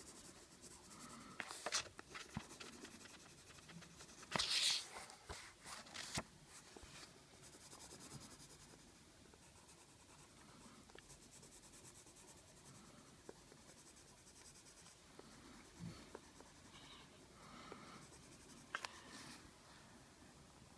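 Colored pencil scratching across paper in short bursts of strokes, loudest about four seconds in, lighter through the middle and picking up again near the end.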